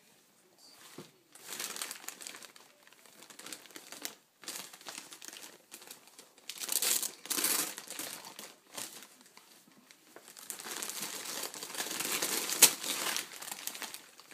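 Gift wrapping paper crinkling and rustling in stretches as it is pulled at, louder in the second half, with one sharp click near the end.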